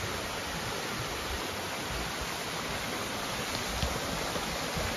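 Steady rushing splash of a small waterfall falling over rocks into a pool.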